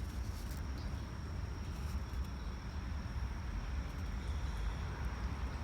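Quiet outdoor background: a steady low rumble with a thin, steady high-pitched whine.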